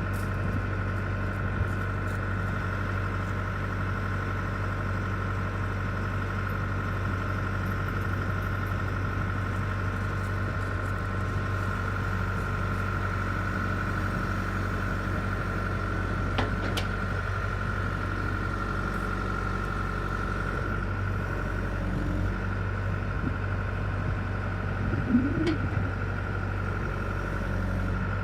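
Bell 315SJ turbo diesel tractor loader backhoe engine running steadily, a low drone with a steady high whine over it. There is a brief knock about two-thirds of the way through.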